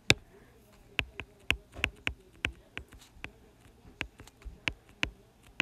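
Stylus tip tapping and ticking on a tablet's glass screen while handwriting, sharp irregular clicks about three a second, the first the loudest.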